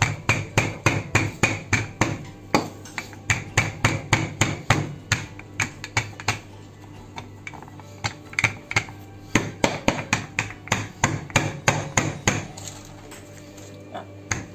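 Wooden rolling pin pounding hot steamed rice-flour crumbs against a countertop: rapid dull thuds about three a second, with a short pause just past the middle and another near the end. The steamed mixture is being pounded into a tteok dough.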